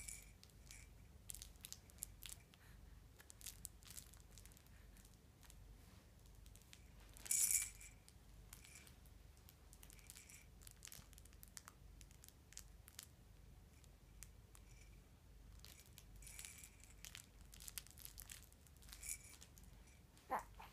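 Faint rustling, crinkling and small clicks as a baby grabs and handles plush toys hanging from a play arch and shifts under a fleece blanket, with one louder crinkle about seven seconds in and a brief squeak near the end.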